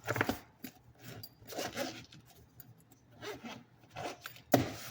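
Battery chargers and gear being packed into a foam-padded carrying case: a few short bursts of rubbing and scraping, then a sharp knock near the end.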